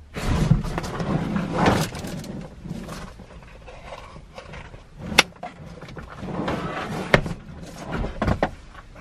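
A car's front passenger seat being slid and lifted out of the car, with rustling and scraping as it rubs over the carpet, loudest in the first two seconds. A few sharp knocks from the seat frame follow, the sharpest about five seconds in and another about two seconds later.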